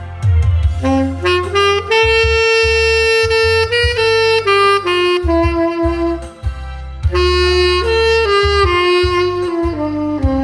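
Saxophone playing a slow melody of long held notes that step downward in two phrases, with a brief break about six seconds in, over a low bass accompaniment.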